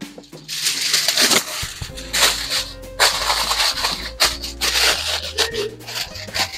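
Aluminium foil crinkling and rustling in irregular surges as it is folded and pressed around a cooked duck breast to let the meat rest, with background music underneath.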